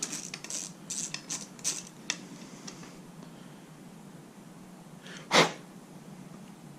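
Socket ratchet clicking in quick bursts for about two seconds as a water pump bolt is backed out of the outboard's lower unit. About five seconds in there is a single short, loud sneeze-like huff.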